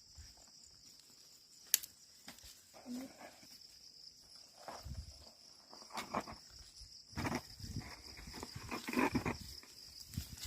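Ox team and plough working a field: scattered soft thuds and rustling, busiest in the latter part, with a sharp click just under two seconds in, over a steady faint high hiss.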